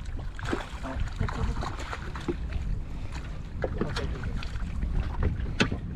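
Wind buffeting the microphone over water lapping against a small boat's hull, with scattered knocks and splashes as a fish is scooped up in a landing net.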